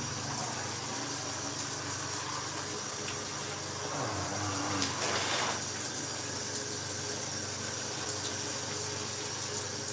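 Shower running: a steady hiss of water spraying, which thickens briefly about four to five seconds in.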